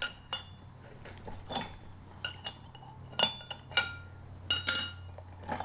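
Steel hardware being handled: a bolt, washers, a steel plate and an old square nut clink and knock together in a string of sharp, ringing metallic clinks. The loudest clinks come in a quick cluster near the end.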